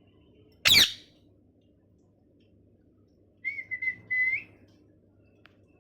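Ringneck parakeet calling: one short, loud, harsh screech sweeping down in pitch about a second in, then a few clipped whistled notes that end in a held whistle rising at the end.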